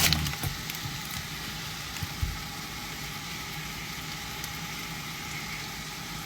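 Food frying in a pan with a steady sizzle, over a low hum, with a soft knock about two seconds in.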